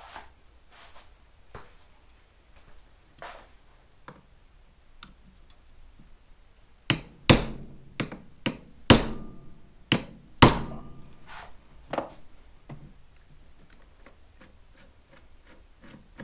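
A hammer strikes the back of a JIS screwdriver set in a screw on a Suzuki GS550 carburetor rack, about eight sharp blows in a quick run about halfway through, to shock a stuck screw loose. Light clicks of the tools being handled come before.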